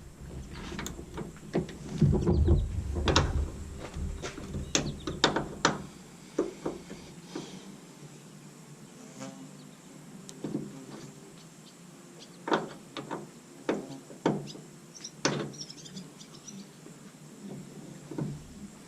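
Irregular clicks and knocks, like tools and metal parts being handled, with a low rumble during the first few seconds.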